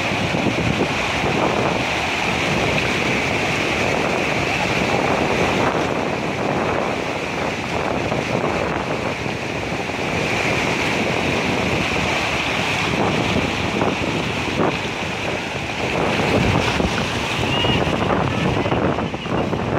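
Flooded river in spate: a torrent of muddy water rushing past in a steady, loud, unbroken rush, with wind buffeting the microphone.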